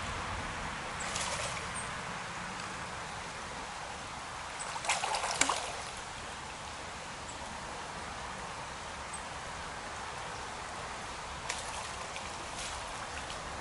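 Small stream running steadily over gravel, with a brief splash about five seconds in as a spawning brown trout thrashes at the surface, and a smaller splash later.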